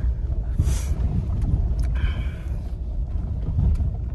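Jeep driving, a steady low rumble of engine and tyres heard inside the cabin, with a brief hiss about half a second in.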